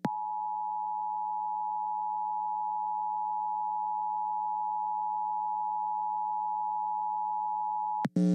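Emergency Alert System attention signal: a steady two-tone alert tone held about eight seconds, then cut off sharply, announcing a severe thunderstorm warning. A faint low hum runs beneath it.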